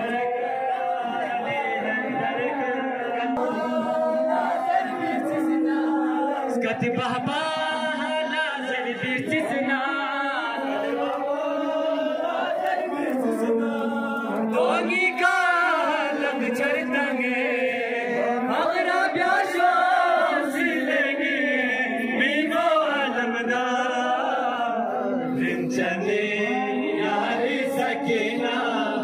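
Group of men chanting a nauha, a Shia lamentation, in unison, with a lead voice sung into a handheld microphone and carried over a loudspeaker.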